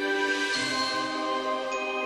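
Background music: held chords that change about half a second in, with high ringing notes coming in near the end.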